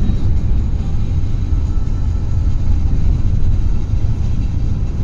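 Steady low road and tyre rumble heard inside a car's cabin while driving at highway speed.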